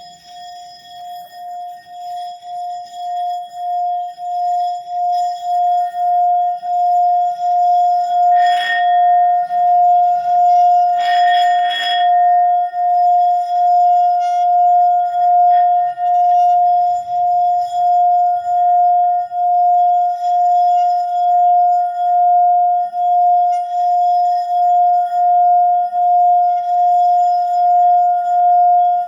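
Singing bowl rubbed around its rim, building up from quiet over the first several seconds into one loud, sustained ringing tone that pulses evenly, the humming 'Om' sound it is played for. Brief scratchy noises break in twice in the middle.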